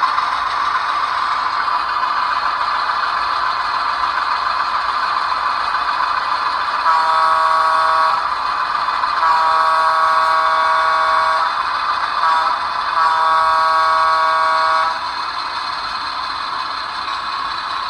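TCS diesel sound decoder in an HO scale Atlas RS1, played through iPhone speakers. The simulated diesel engine runs steadily while the horn sounds about seven seconds in, in a long, long, short, long pattern: the grade crossing signal.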